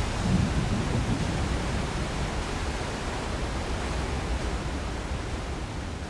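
Steady rush of a waterfall pouring into whitewater, a dense even noise that fades slowly toward the end.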